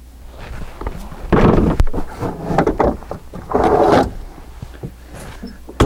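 Folded plastic PetLoader pet steps being slid into a semi truck's side storage compartment: plastic scraping against the box in several stretches between about one and four seconds in, with a few sharp knocks.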